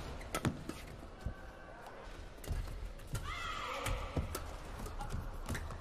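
Badminton rally on an indoor court: rackets striking the shuttlecock with sharp cracks, and players' footsteps and shoes on the court mat. About three seconds in there is a short pitched squeal, a shoe squeak or a player's cry.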